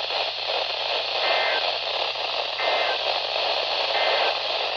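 Steady hiss of static from a weather radio on a weak NOAA Weather Radio signal. Three short, faint two-tone data bursts of the EAS/SAME digital code come through it about a second and a half apart, closing the marine warning message.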